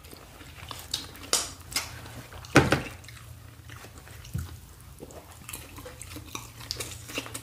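Close-up wet chewing and mouth sounds of people eating, with scattered smacks and clicks; the sharpest one comes about two and a half seconds in.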